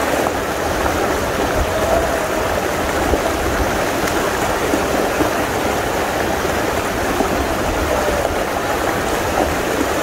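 Rocky river water rushing over stones in a steady, unbroken flow.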